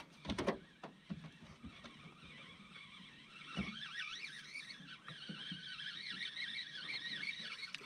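A few light knocks of handling in the boat, then from about halfway a faint, wavering whir of a spinning reel being cranked as a spoon lure is retrieved.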